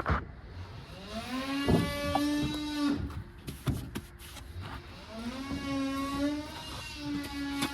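A power tool's motor whining up to speed, running steadily for a second or two and stopping, three times in a row, with a few sharp knocks in between.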